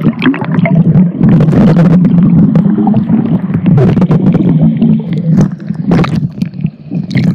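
Muffled underwater sound from a phone's microphone inside a sealed case, held under the water of a swimming pool: a loud, low rumble of churning water with bubbling clicks and knocks against the case. The high sounds drop away right at the start as it goes under.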